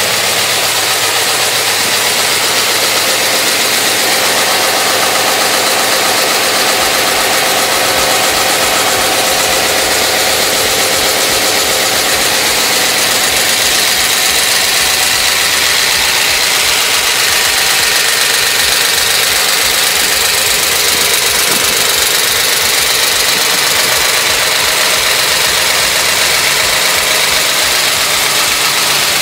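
Freshly rebuilt Mopar 383 big-block V8 idling steadily on an engine test stand, its exhaust running through Flowmaster 40 Series mufflers.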